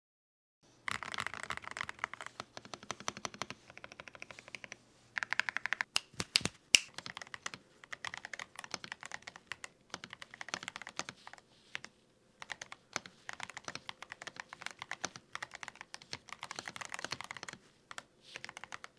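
Higround mechanical keyboard with TTC Heart switches being typed on quickly, a rapid patter of individual key clacks in runs with short pauses between them, starting about a second in; a few strokes a third of the way through stand out louder.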